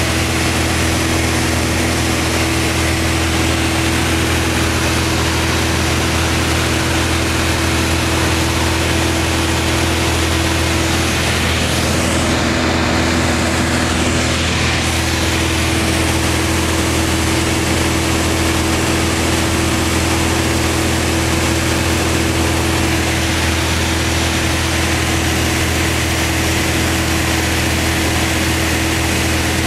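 Piper Turbo Arrow's turbocharged six-cylinder engine and propeller droning steadily in cruising flight, heard from inside the cabin.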